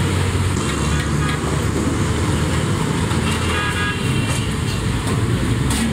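Mutton chops sizzling in masala gravy on a hot flat tawa, with steady street-traffic rumble underneath.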